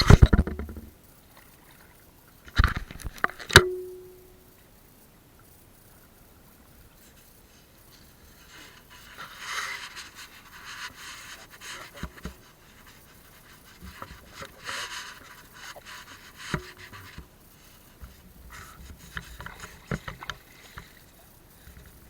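A few sharp knocks, the last one ringing briefly, then on-and-off water splashing and sloshing while gill nets are worked in the water.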